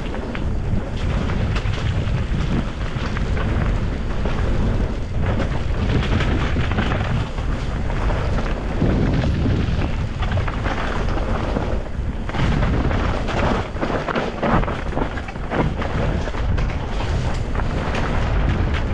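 Wind buffeting the microphone as a downhill mountain bike runs a rough trail: a steady low rumble with frequent short clattering knocks from the bike.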